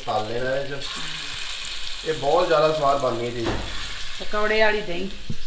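Lumps of gram-flour pakora batter dropped into hot oil, sizzling as they fry, with a voice talking over it.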